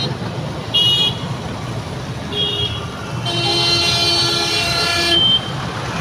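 Road traffic with vehicle horns: two short toots, then a long horn blast lasting about two seconds, over the steady rumble of engines and tyres on a wet road.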